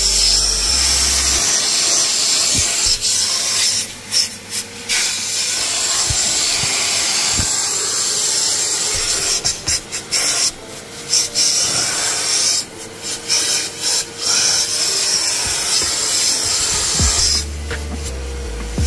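SIP 3-in-1 industrial valet machine vacuuming along the carpet and seat rails, a loud suction hiss with the crevice nozzle rubbing and rasping on the surfaces. The hiss drops briefly several times as the nozzle is moved.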